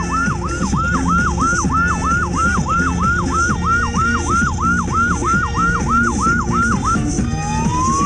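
Electronic siren on a rapid yelp, its pitch sweeping up and down about three times a second. Near the end it switches to a slow rising wail.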